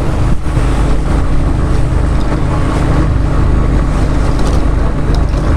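Fishing boat's engine running steadily at sea, a loud low hum under a rushing hiss of wind and water.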